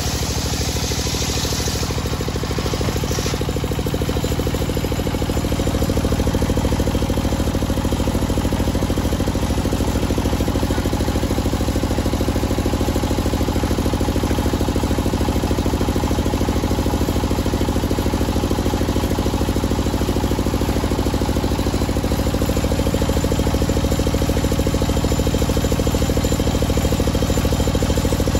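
Homemade table circular saw finishing a rip cut through a teak log: the hiss of the blade in the wood stops about three seconds in. After that the saw's engine runs steadily with the blade spinning free, a little louder from about six seconds in.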